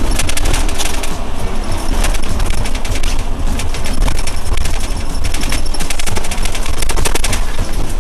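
Inside a moving Modasa Zeus coach: a dense, rapid rattle over the low rumble of the bus on the road.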